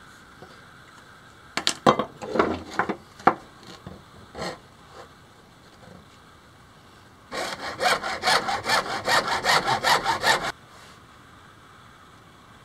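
Hacksaw cutting through a thick white plastic pipe. A few halting strokes come about two seconds in, then a fast, steady run of about five strokes a second for some three seconds that stops abruptly.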